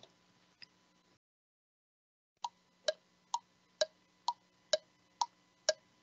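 Quiz countdown-timer sound effect: a clock-style tick-tock that starts about two and a half seconds in, at roughly two ticks a second, alternating a higher and a lower tick.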